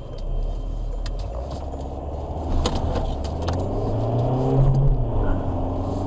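Motor vehicle engine accelerating, heard from inside a car's cabin: a steady low hum that climbs in pitch to a peak about four to five seconds in, then eases off. A few faint clicks sound along the way.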